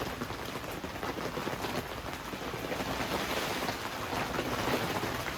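Heavy rain falling on a tent in strong, gusting wind: a steady dense patter that swells a little towards the middle.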